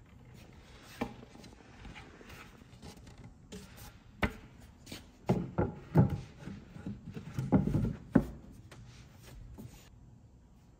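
Wooden cabinet panel being handled and fitted onto a cabinet box: rubbing and scraping of wood on wood, with scattered sharp knocks and a loud cluster of knocks about five to eight seconds in.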